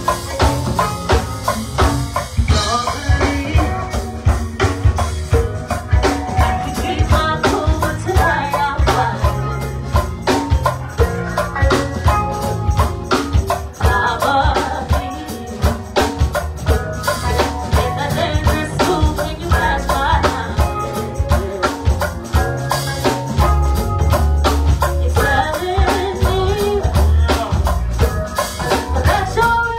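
Live go-go band playing: drum kit and congas keep a steady, continuous beat under a lead singer's voice.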